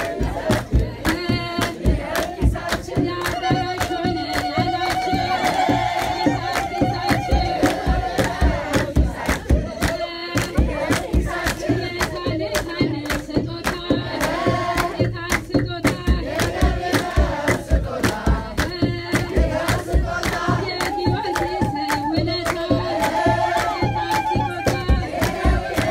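A group of women singing an Ethiopian Orthodox hymn (mezmur) together, with hand clapping and a kebero drum beating a steady, driving rhythm under the singing.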